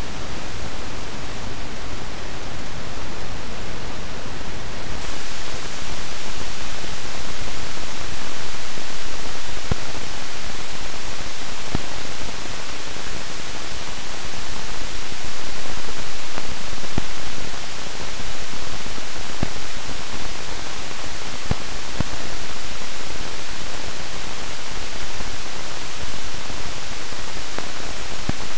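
Amplified collector-current noise of unmarked TO-5 metal-can silicon epitaxial transistors: a steady hiss with scattered faint pops. The pops are popcorn noise, also called random telegraph noise, the current jumping between discrete levels. About five seconds in, the hiss changes as the next transistor's recording takes over.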